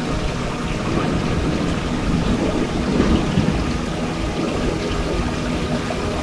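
Wind rumbling and buffeting on the microphone, a steady noise heaviest in the low end.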